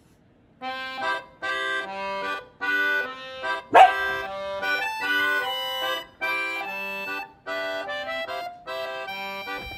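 Background accordion music playing a bouncy pattern of short chords. About four seconds in, a single short, sharp sound stands out above the music.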